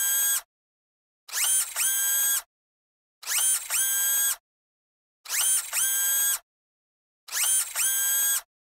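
An electronic sound effect repeating about every two seconds, five times: each about a second long, a quick upward sweep settling into a held ringing tone, with dead silence between.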